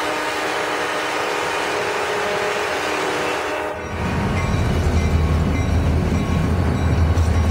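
Diesel locomotive air horn sounding a steady chord, cutting off abruptly about four seconds in, followed by the deep rumble of a passing train.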